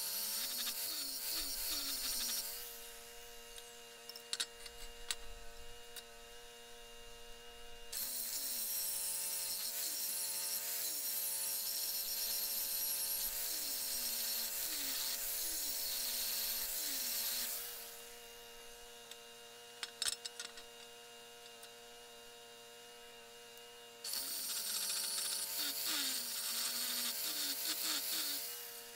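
A power tool working steel in three runs, each starting abruptly and winding down over about a second, with a few sharp metal clanks in the pauses between them. A steady hum sits underneath throughout.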